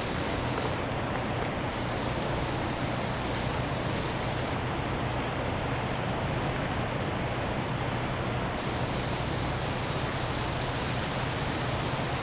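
Melting ice dripping and falling from ice-coated trees, a steady rain-like patter with a few sharper ticks now and then.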